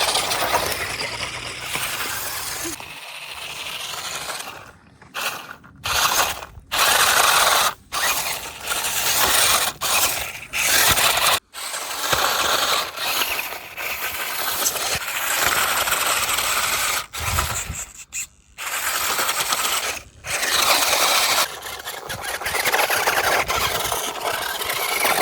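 Large electric RC car running in repeated bursts: a noisy mechanical whirr from its drivetrain and tyres that starts and cuts off abruptly many times.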